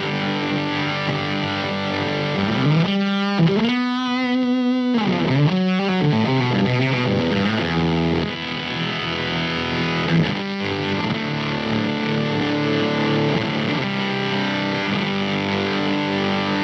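Electric guitar played through a Weird Noise Effects fuzz pedal into a distorted amp. Thick, sustained fuzzy notes and chords, with a wavering pitch sweep that glides up and down from about three to six seconds in.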